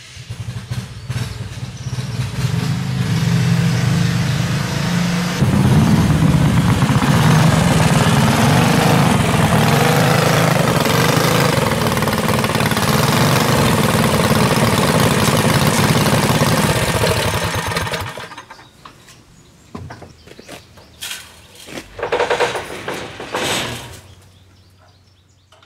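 A home-built dual-engine go-kart's small 212cc engines running, getting louder and harder-working about five seconds in as it drives up onto a trailer, then shut off after about eighteen seconds. A few metal clanks follow as the trailer's mesh ramp gate is lifted.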